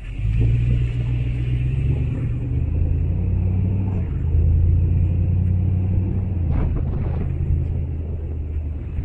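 Lexus LX470's V8 engine and drivetrain running as the SUV crawls along a rough off-road trail: a steady low rumble whose pitch steps down a little about two to three seconds in, with a couple of faint knocks near the end.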